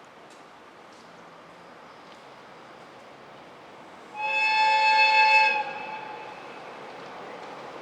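An electric freight locomotive sounds one horn blast lasting about a second and a half, over the rumble of an approaching freight train that grows slowly louder.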